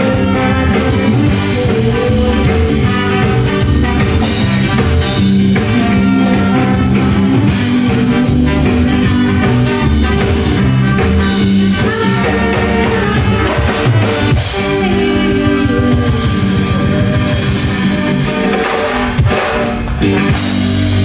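Live rock band playing loud: electric guitars, bass and drum kit with crashing cymbals, the sound of a band in a festival tent.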